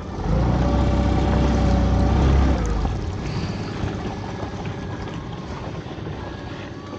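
A dinghy's outboard motor is opened up for about two and a half seconds, then eased back to a low run as the boat moves up to the next pot.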